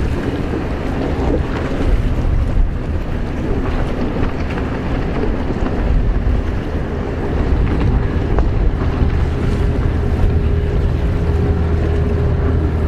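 Racing jet skis (personal watercraft) running at speed, a steady engine drone with a held engine note coming in about halfway through. Wind rumbles on the microphone.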